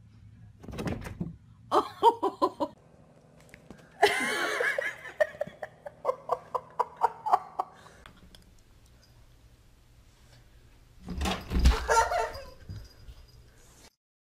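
People laughing in bursts of short repeated 'ha' pulses, several times over, with a loud shrill outburst about four seconds in.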